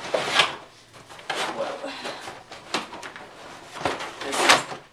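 Cardboard box and plastic packaging rustling and scraping as the plastic case of a 300-piece drill-bit kit is slid out of its box, with a few sharp knocks of the case against the box and table, the loudest near the end.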